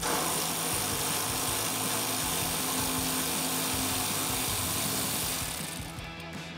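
Power tool spinning a 12 mm socket on an extension to back out a cooler bracket bolt. It runs steadily for about five and a half seconds, starting abruptly and trailing off near the end.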